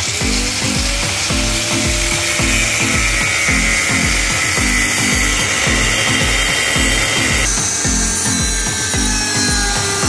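Handheld angle grinder spinning up with a rising whine just after the start, then cutting a flat steel bar with a high steady whine. Background music with a steady beat plays underneath.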